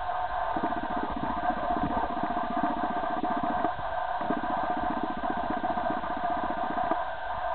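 A low, fast-pulsing motor-like buzz in two spells of about three seconds each, with a short break between them, over a steady background hum.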